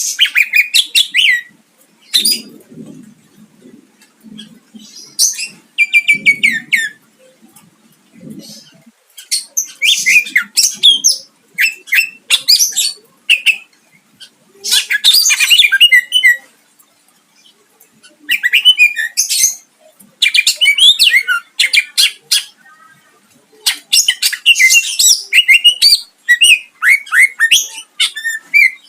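Greater green leafbird (cucak ijo) singing loud bursts of rapid, sharp notes and trills, phrase after phrase a second or two long with short pauses between.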